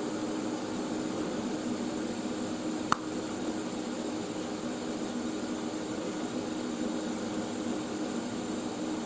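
Steady hum of a TIG welding set's cooling fan running, with one sharp click about three seconds in as the welding arc is shut off.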